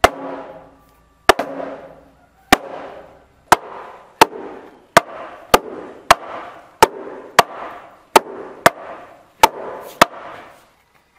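Sledgehammer and wooden mallet blows on a timber house frame, driving a slat into the mortise of a log beam. About fourteen sharp knocks, each with a short ring from the wood; they come faster in the second half.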